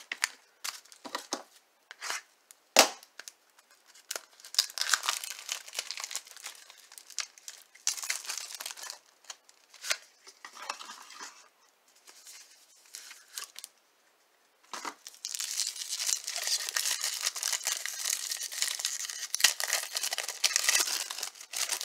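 A clear cellophane wrapper on a pack of trading cards, crinkled and torn open by hand. A few sharp handling clicks come in the first three seconds, then scattered crinkling. About two thirds of the way in, the crinkling becomes loud and continuous as the wrapper is pulled apart.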